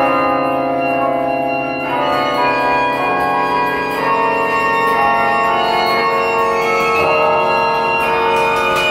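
A 54-bell carillon played from its baton keyboard: bronze bells struck in a slow passage, new notes entering every second or two over the others as they ring on.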